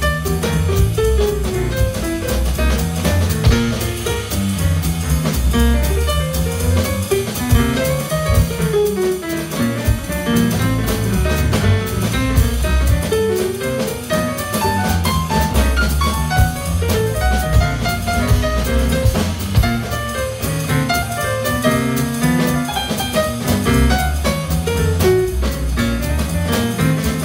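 A live jazz quartet of saxophone, piano, double bass and drum kit playing a swing tune, with a walking bass line under the melody and cymbals.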